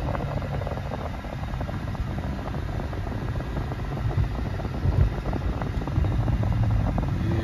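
Car engine and road noise heard inside the closed cabin while driving: a steady low rumble, with a couple of light thumps near the middle.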